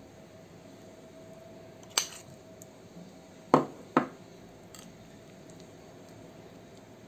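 Metal spoon clinking against glassware while scooping and spreading a thick cheese-and-mayonnaise topping: one sharp clink about two seconds in, two more close together around three and a half to four seconds, and a few fainter taps, over a faint steady hum.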